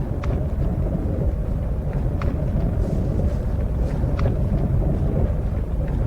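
Steady low roar of blizzard wind, with three or four faint sharp pops spread through it.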